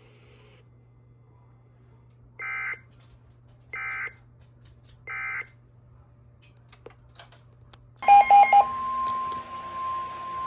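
Weather radio alert signalling: three short, identical buzzy data bursts about a second and a half apart, the EAS end-of-message code closing the previous warning, over a low steady hum. About 8 s in a new alert starts with a quick run of loud pulsed beeps, then the steady single-pitch NOAA Weather Radio warning alarm tone of about 1050 Hz.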